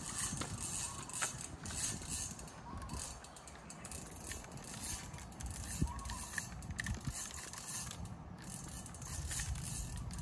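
Daiwa Certate 5000 spinning reel being worked by hand, its gears and mechanism turning in uneven spells.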